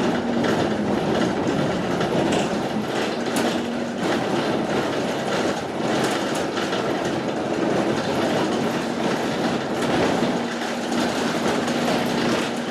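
Steady rumble of vehicle traffic with irregular clattering and a low engine hum that comes and goes.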